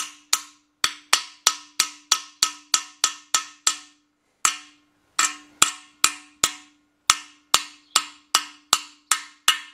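Steady hammer blows on a metal seat driver, about three a second with a short break near four seconds in, pressing a frozen hardened exhaust valve seat into its pocket in a Willys L-134 four-cylinder flathead block. Each blow is sharp, and a steady metallic ring carries on beneath the strikes.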